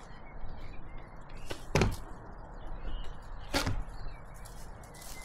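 Two sharp knocks, nearly two seconds apart, over faint steady background noise.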